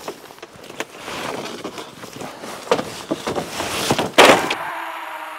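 Footsteps and the knocks of a door being opened and shut, with the loudest bang about four seconds in.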